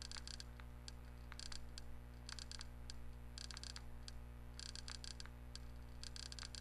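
Faint runs of quick button clicks, several at a time, coming about once a second, over a steady low electrical hum.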